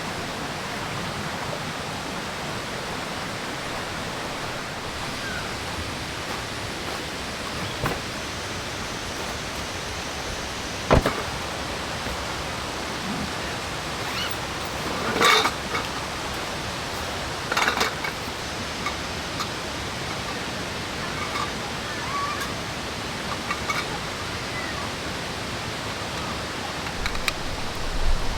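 Steady rush of a waterfall and stream. A sharp knock comes about eleven seconds in, and two brief clatters follow a few seconds later.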